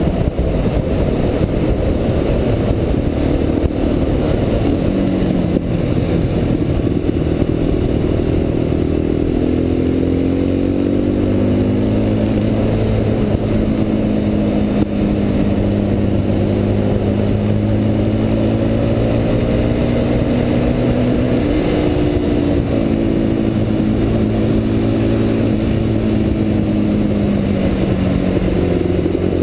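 Quad bike (ATV) engine running under way on the road, its pitch rising and falling with the throttle through the bends. It climbs several seconds in, shifts again about two-thirds through, and drops near the end.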